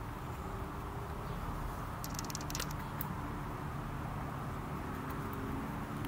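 Steady low rumble of distant motor traffic with a faint engine hum, and a few brief faint clicks about two and three seconds in.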